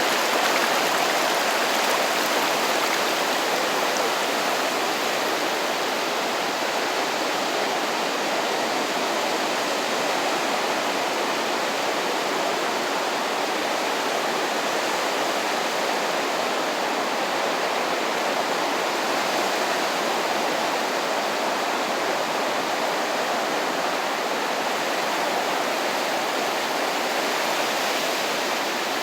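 Waves washing onto the shore of a calm sea: a steady, even rush of surf with no single breaker standing out.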